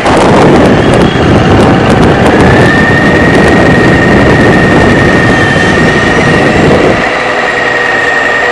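Onboard sound from a small electric RC vehicle carrying the camera across asphalt: a loud, rough rumble of wheels and chassis on the pavement, with a steady high electric-motor whine from about two seconds in. The rumble drops away about seven seconds in.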